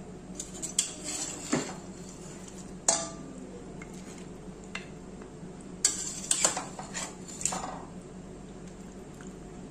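A ceramic dish and a wooden spoon knocking and scraping against a stainless steel pot as chicken curry is stirred and scooped out: several sharp clinks, with a cluster of them about six seconds in, over a steady low hum.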